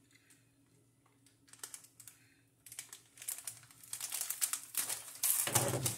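Plastic chip bag crinkling and rustling as a handheld mini heat sealer is pressed and slid along its top. It starts faint and grows into dense crackling in the second half, with the loudest rustle near the end.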